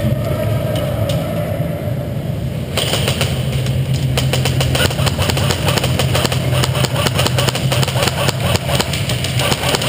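Airsoft electric rifle (AEG) firing on full auto: its gearbox motor hums while a rapid stream of clicks runs in long bursts, starting about three seconds in.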